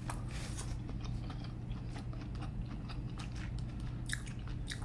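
Close-up eating sounds: seafood shells crackling and being picked apart for small bits of meat, with chewing, as scattered small clicks and crunches over a low steady hum.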